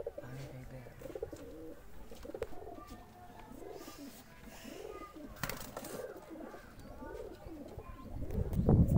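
Domestic pigeons cooing, a steady run of repeated rising-and-falling coos, typical of a male pigeon's bow-coo courtship call. A brief sharp noise about halfway through, and a louder low rumbling near the end.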